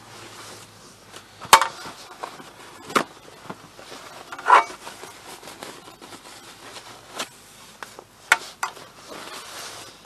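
Paper towel rubbing and wiping over the side cover of a Motobécane AV89 moped, cleaning its trim strip, with a few sharp knocks and short scrapes in between, the loudest about a second and a half in and about four and a half seconds in.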